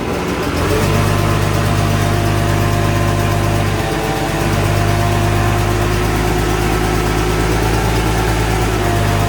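An engine idling steadily, with a brief dip in level about four seconds in.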